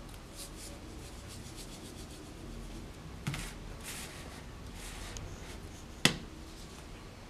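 A plastic drink-mix canister being handled, with light rubbing of skin against its sides. It is set down on the table with a soft knock about three seconds in, and a sharp click about six seconds in is the loudest sound.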